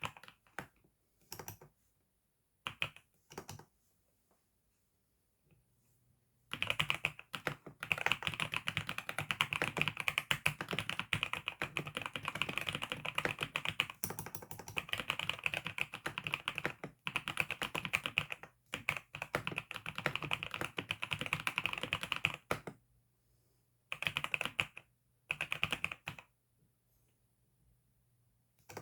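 Typing on a computer keyboard: a few separate keystrokes at first, then a long run of fast, continuous typing with a brief pause partway through, and two short bursts of keystrokes near the end.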